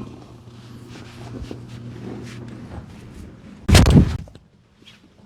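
Patient shifting on a chiropractic table, then one loud thud and crack about four seconds in: the chiropractor's thrust in a side-lying low-back adjustment.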